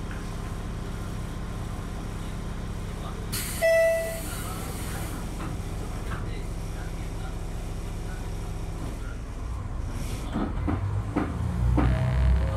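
KiHa 200 series diesel railcar's engine idling while stopped at a station. About three and a half seconds in there is a short burst of hiss with a brief tone; near the end the diesel engine revs up, with a few clunks, as the railcar starts to pull away.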